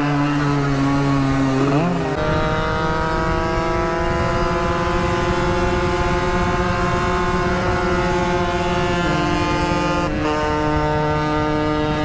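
Two-stroke motorcycle engine running at a steady speed while riding. Its note holds steady, steps to a lower pitch about two seconds in, and shifts again about nine seconds in.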